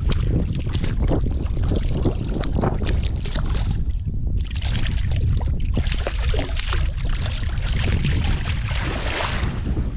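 Wind buffeting an action camera's microphone: a heavy, steady low rumble, with uneven splashy water noise over it.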